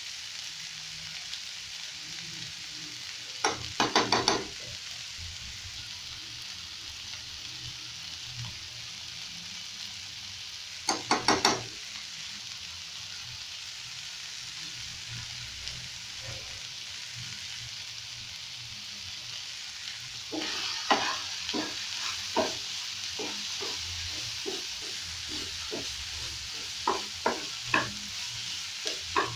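Beef tripe, tomatoes and onions sizzling steadily in a non-stick frying pan. A spoon is tapped against the pan in two quick bursts, about 4 and 11 seconds in. From about 20 seconds on, a wooden spatula stirs the pan with repeated knocks, a few a second.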